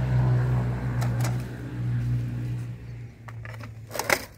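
Sharp plastic-and-metal clicks and clacks from a hand-pushed dibble fertilizer applicator as it is driven into the soil, a cluster of them near the end. Under them a steady low motor hum fades about three seconds in.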